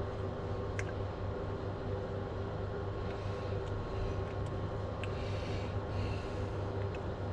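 Steady low electrical hum of the workshop, with a few faint clicks and a soft rustle of hands working grease into a swingarm needle bearing.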